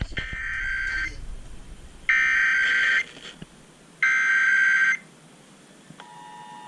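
Emergency Alert System SAME header as aired on FM radio: three one-second bursts of warbling digital data tones, a second apart. About six seconds in, the steady two-tone EAS attention signal starts, signalling the start of the alert.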